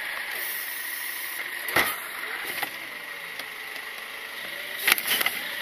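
Automated side-loader garbage truck running its hydraulic arm to lift and tip a trash cart: a steady engine-and-hydraulic noise with a thin high whine, a sharp knock about two seconds in, and a burst of knocks and clatter near the end as the cart is shaken out over the hopper.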